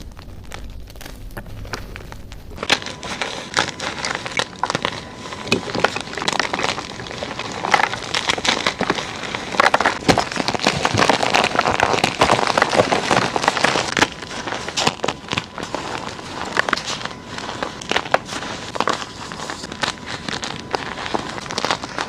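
Gym chalk crushed and crumbled close to the microphone: a dense, irregular crackling crunch that starts about three seconds in and is busiest and loudest from about ten to fourteen seconds in.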